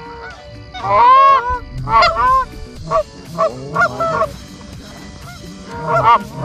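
Geese honking: a quick run of short, arched honks, loudest about a second in, thinning out through the middle and picking up again near the end.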